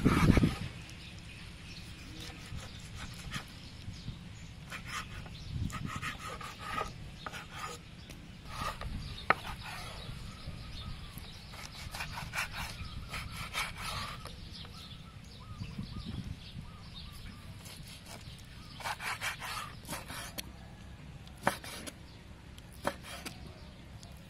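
Kitchen knife slicing through raw beef heart on a wooden chopping board: soft, uneven scraping and rubbing strokes, with a few sharp taps of the blade on the board, one about nine seconds in and two near the end.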